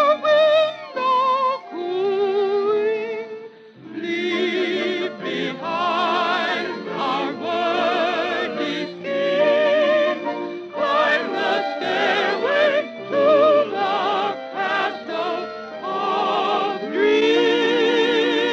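Operatic singing with heavy vibrato from a 1940 radio recording, in phrases broken by short pauses, with a brief dip about three and a half seconds in and a long held note near the end.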